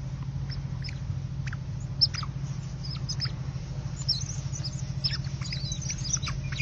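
A group of otters chirping and squeaking: many short, high-pitched chirps, several falling in pitch, growing more frequent from about four seconds in, over a steady low hum.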